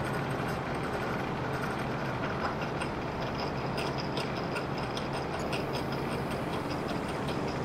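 Light metallic ticks and clicks as a small metal bracket is shifted and lined up on a drill press's cast-iron table under the bit, over a steady low hum.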